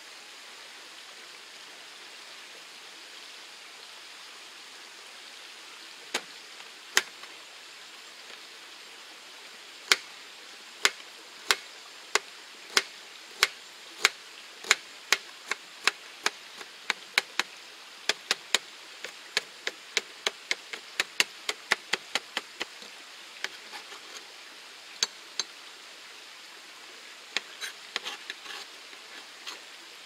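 Kitchen knife chopping ginger on a plastic cutting board. Sharp knocks: two single strikes at first, then a steady run of about two a second that quickens before breaking into scattered taps near the end. Under it runs the steady rush of a mountain stream.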